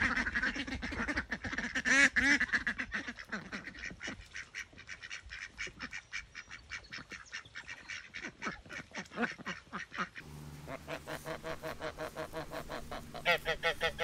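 A flock of ducks calling in rapid, short quacks. About ten seconds in the sound changes to geese, with a run of louder honks near the end.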